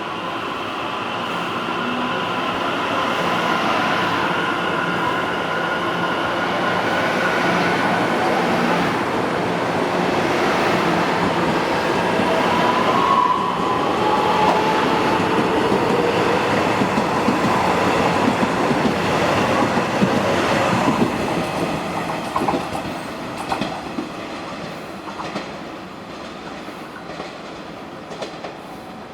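Passenger train running through a railway station, its wheels clattering over the rail joints with some high steady tones above the clatter. It grows louder as it approaches, is loudest a little past the middle, then fades as it moves away.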